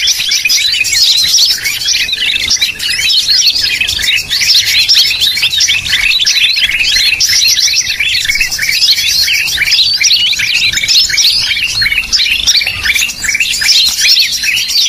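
Green leafbird (cucak ijo) calls played as a bird-trapping lure: a loud, dense, unbroken stream of rapid, high chirps and twitters.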